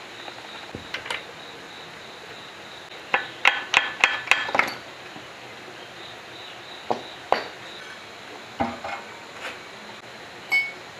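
Steel engine parts and a wrench clinking and clanking against a generator's cast-iron engine block as the crankshaft and bearing caps are taken out: a quick run of about six sharp clinks around three to five seconds in, then single knocks spread over the rest.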